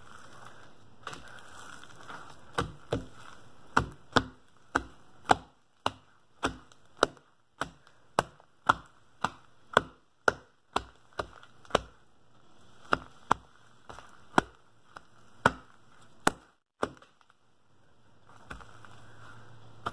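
Heavy slime being stretched and kneaded by hand, making a string of sharp pops and clicks, roughly two a second, that stop a few seconds before the end.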